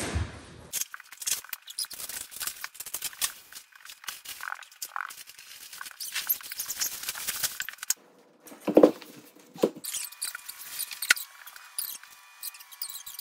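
Plastic wrapping crinkling and crackling as a vacuum-packed roll-up mattress is unrolled and pulled out of its wrap.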